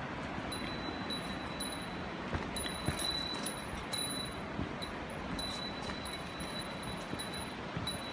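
Small bear bell on a hiker's pack jingling with the walking, a short bright ring about twice a second, over a steady rushing noise and a few footfall thuds.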